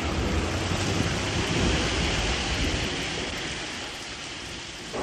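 Heavy rain pouring steadily. A low rumble sits under it for the first two seconds or so and gradually fades.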